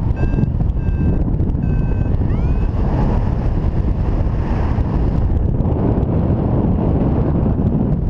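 Wind rushing over the camera microphone in paraglider flight. Over the first three seconds a variometer beeps about four short high tones, some sliding up in pitch: its climb tone, the sign that the glider is in lift.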